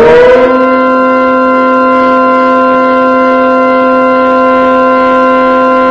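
Synthesized civil-defense siren made from generated tones in Audacity, finishing its wind-up about half a second in. It then holds a steady chord of several tones at full volume.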